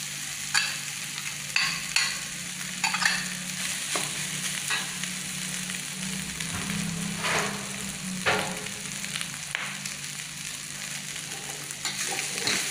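Fried rice sizzling in a wok as it is stirred: a steady frying hiss, with the metal spatula scraping and clinking against the pan at irregular intervals, about every second or so.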